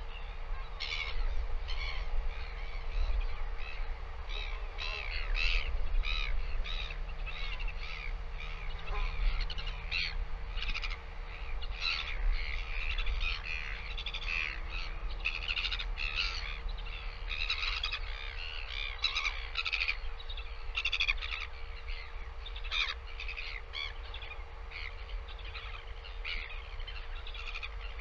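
Birds calling in many short, quick notes, over a steady low rumble and a faint constant hum.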